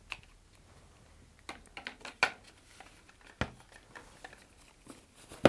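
Sparse small clicks and taps of hands handling a paper-tube model rocket and glue bottles, with a sharper knock at the very end.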